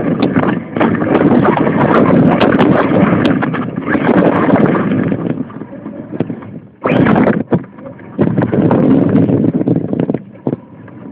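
RC car driving, heard through a phone microphone strapped to its chassis: a loud rumbling rush of wind on the microphone and rattling from the tyres and chassis, with scattered knocks. The noise drops away briefly about halfway through and again near the end as the car slows.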